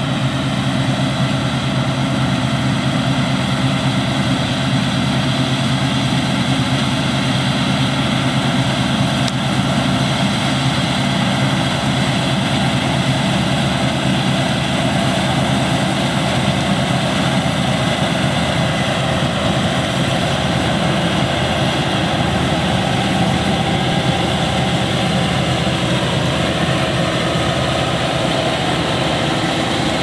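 Claas Lexion 650 combine harvester and John Deere 6930 tractor running side by side, the combine threshing wheat and unloading grain into the tractor's trailer. A steady, unbroken drone of engines and machinery.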